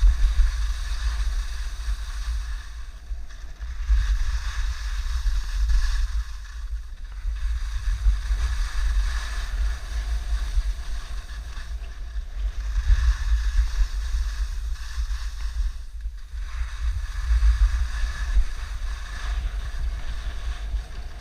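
Wind buffeting the microphone: a steady low rumble, with a hiss that swells and drops back every few seconds.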